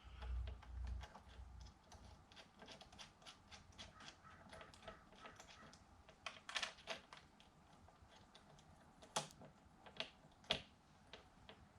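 Faint, irregular small clicks and ticks of small metal parts and tools being handled while fitting an RC truck's steering knuckle, with a few sharper clicks in the second half.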